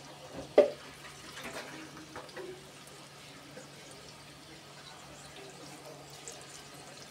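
Battered chicken pakora pieces deep-frying in a metal pan of hot oil: a steady sizzle with faint scattered pops as fresh pieces are dropped in. A single sharp knock about half a second in is the loudest sound.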